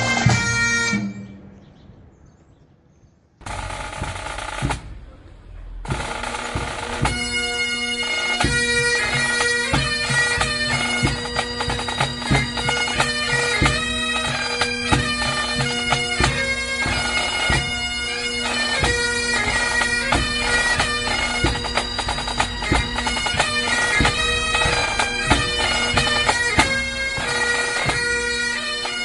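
Bagpipes playing a tune over their steady drones; the first piece fades out about a second in, and after a short gap another piece starts up about six seconds in, accompanied by drum beats.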